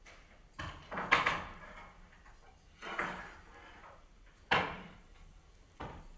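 Hard objects being handled and set down on a work table: five separate knocks and clatters, the sharpest about a second in and another a little past halfway.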